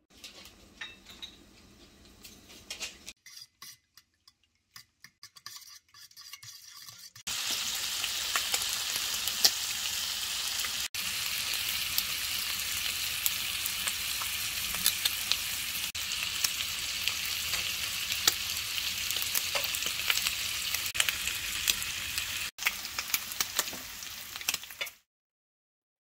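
Bacon and butter sizzling in a frying pan, with a pat of butter pushed about with a fork. Faint clicks and light sizzling at first, then from about seven seconds in a loud, steady sizzle with crackles, with two brief breaks.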